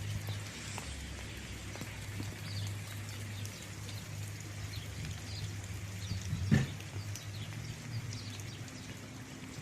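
Quiet outdoor ambience: faint bird chirps over a steady low hum, with a single sharp knock about six and a half seconds in.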